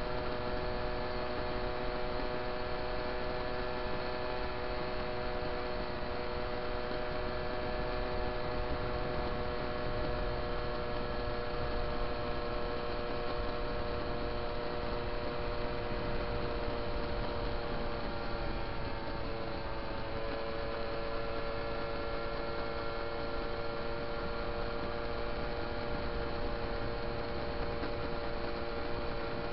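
Small moped engine running steadily at cruising speed, heard as a constant whining drone from the mount, with a low rumble beneath. Its pitch dips slightly about two-thirds of the way through as the engine speed eases.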